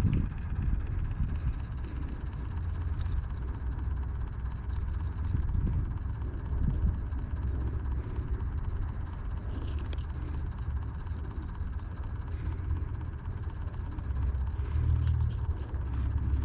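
A low, steady rumble with a few faint clicks and taps over it.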